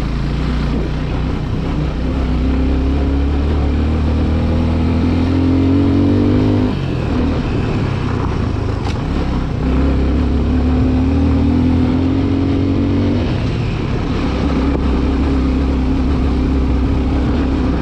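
Suzuki Gixxer 250's single-cylinder engine pulling under throttle on a rough dirt track. Its pitch climbs steadily twice and drops off sharply each time, about seven and about thirteen seconds in.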